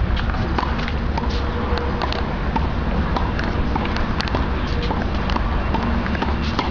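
Tennis balls struck by racquets and bouncing on a hard court in a practice rally, heard as sharp knocks over a steady background of outdoor noise.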